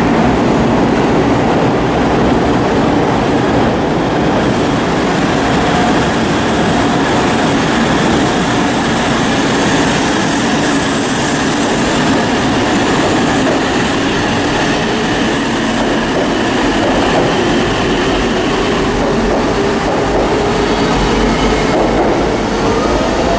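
E2 series Shinkansen bullet train rolling slowly along a station platform, its motors whining with a pitch that slowly falls, over a steady rumble of wheels on rail.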